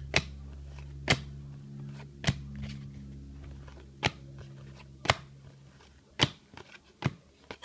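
Trading cards being flipped through one at a time, a sharp click about once a second as each card is moved to the back of the stack. A low steady hum sits underneath and fades away in the second half.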